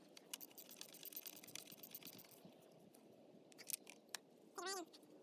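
Faint run of quick, light clicks from hand tools working at the motorcycle engine for about the first two and a half seconds, then a few scattered clicks. Near the end, a single short wavering bleat from a sheep or goat.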